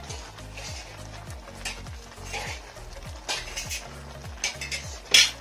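Metal spoon stirring and scraping Maggi noodles in a large metal pan, with several clinks against the pan (the loudest near the end) over the hiss of the steaming, simmering noodles. Background music with a low repeating beat runs underneath.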